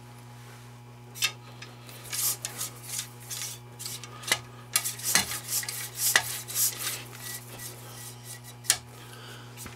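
Steel cleaning rod with a dry cloth patch on its jag being worked in a flintlock rifle's bore: the rod scrapes and clinks against the barrel in a run of rubbing strokes. A sharp metallic click comes about a second in, and another near the end.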